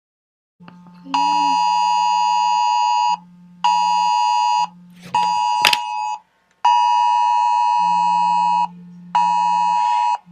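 Smartphone Wireless Emergency Alert attention signal: a loud two-tone blare in its cadence of one long tone followed by two short ones, then a second long tone and a short one, announcing a National Weather Service dust storm warning. A lower steady buzz from the phone's vibration motor fills the pauses between tones, and a single sharp click comes about halfway through.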